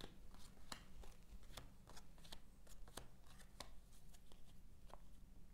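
A deck of oracle cards being shuffled by hand: faint, irregular light clicks and slaps of the cards, about two or three a second.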